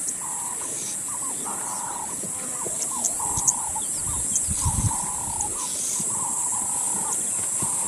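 Wild animal calls: a run of short repeated calls, several a second, over a steady high-pitched drone, with a few low thumps about halfway through.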